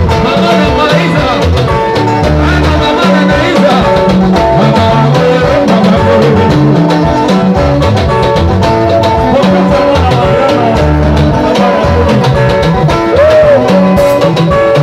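Live band playing loud, upbeat dance music with a steady beat: drum kit, electric bass and keyboard, with some vocals.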